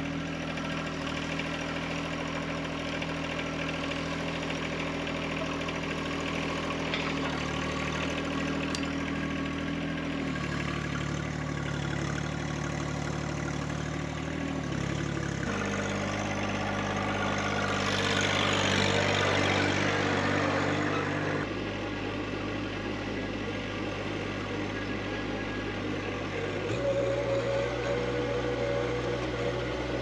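An engine running steadily, its pitch jumping to a new level several times. A rushing noise swells for a few seconds around the middle.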